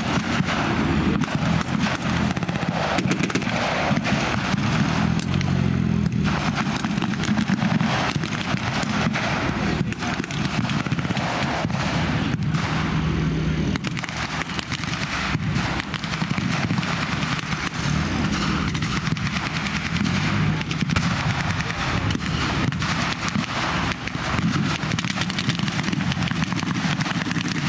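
Reenactment battle gunfire: blank-firing rifles and machine guns, many scattered shots and short rattling strings of fire throughout, over a steady low rumble of military vehicle engines.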